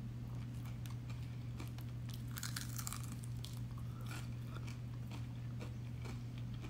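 Crispy fried chicken crunching and crackling as it is chewed and its crust is pulled apart by hand, a scatter of short irregular crackles. A steady low hum runs underneath.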